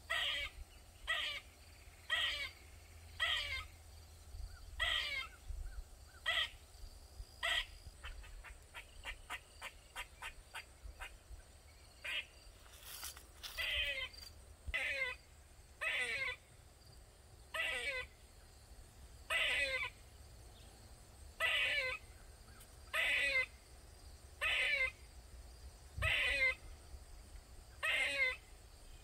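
Eastern gray squirrel crying over and over: one short, harsh call that slides down in pitch about every second or so. About a third of the way in, the calls give way briefly to a quick run of faint clicks.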